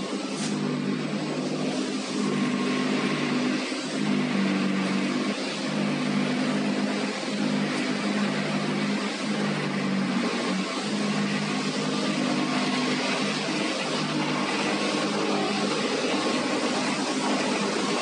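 Plastic film washing line running: the belt conveyor and heavy wet grinder (crusher) give a steady, loud machine hum under a broad rushing noise as waste PP/PE film is fed in.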